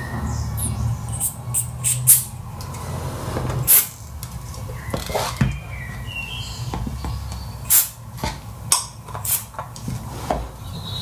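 Handling noises from a metal spray can and a plastic bucket: a series of short, sharp knocks and scrapes at uneven intervals, over a steady low hum.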